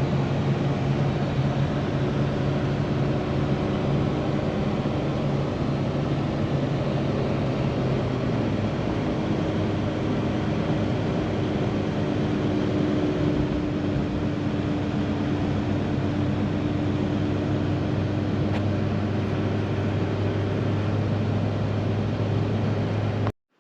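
Pickup truck driving: steady engine hum and road noise, with the engine's hum dropping to a lower pitch about eight seconds in.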